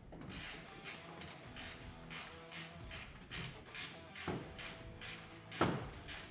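Hand ratchet wrench clicking in short repeated strokes, about three a second, as a nut is run down; one louder knock about two thirds of the way through.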